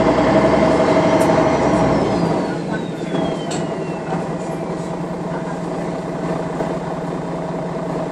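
MAN NL 313 city bus's diesel engine running with a steady hum, louder for the first two seconds. A faint whistle slides down in pitch between about one and five seconds in, with a few light clicks.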